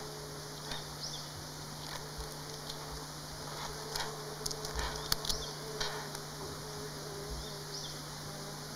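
A small flying insect buzzing close by with a thin, wavering drone, over a steady low hum. Short high chirps come about every second or so, and a few sharp clicks fall around the middle.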